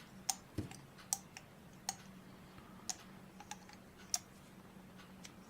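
Small, sharp irregular clicks, roughly one a second, of a hex driver and metal parts being handled while a 1.5 mm grub screw is backed out of a small brushless drone motor, with one duller knock about half a second in. A faint steady hum runs underneath.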